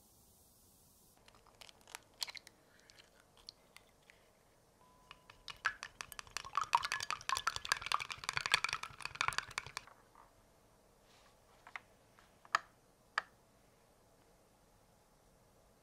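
Wooden chopsticks beating egg in a glass bowl: a rapid run of clinks and taps from about five to ten seconds in. Before it come a few scattered clicks, and after it a few separate sharp clicks.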